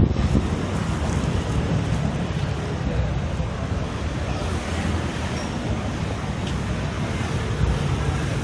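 Steady rumble of wind buffeting the microphone over outdoor street noise.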